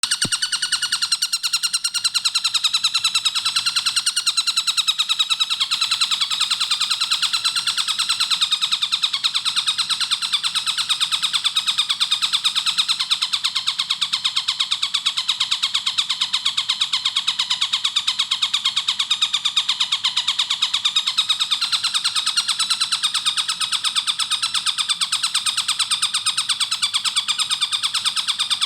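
Tengkek buto (stork-billed kingfisher) song: a continuous, very fast run of repeated shrill notes with no pauses, the tight rapid delivery ('speed rapat') that bird keepers play to train songbirds.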